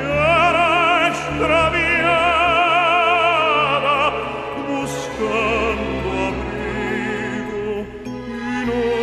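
Background music: operatic singing with long held notes and wide vibrato over an orchestral accompaniment.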